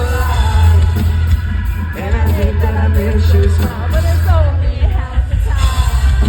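Rock song with a singer over heavy, continuous bass and steady drums.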